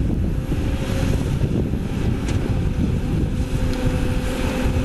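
CAT 320D excavator's six-cylinder diesel running under load as it digs, with a steady whine coming in about three seconds in and a short sharp click about halfway.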